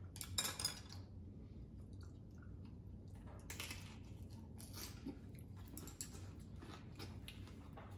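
Close-up chewing of lettuce wraps and side dishes, with short crisp crunches; the loudest come about half a second in and again around three and a half seconds in.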